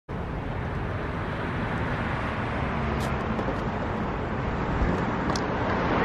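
Steady outdoor traffic noise from cars on the road, with a faint hum early on and two faint short clicks about three seconds and five and a half seconds in.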